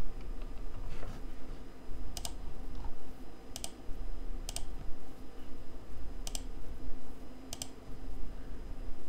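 A few isolated clicks from computer keyboard and mouse use, five or six spread a second or more apart, over a faint steady hum.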